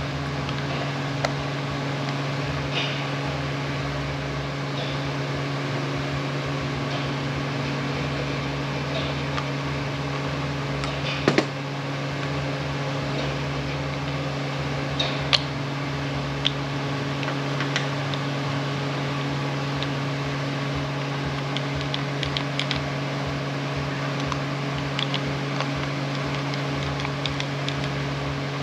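Steady mechanical hum, like a fan, under scattered small clicks and taps of metal parts being handled while an air impact wrench is put back together, with one sharper knock about eleven seconds in.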